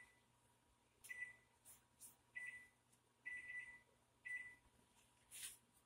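Faint electronic keypad beeps from a built-in wall oven's control panel as buttons are pressed to set it: about five short high beeps, one slightly longer, with a few soft button clicks.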